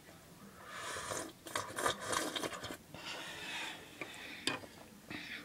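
Rough rustling and scraping noises right against the microphone, with many short clicks; they die down after about four seconds, leaving a few sharp clicks.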